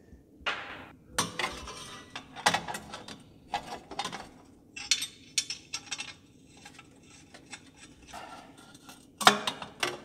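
Polished metal turbo hot-side piping clinking and knocking as the bent pipe sections are handled and pushed together, in irregular sharp metallic clanks, the loudest about nine seconds in.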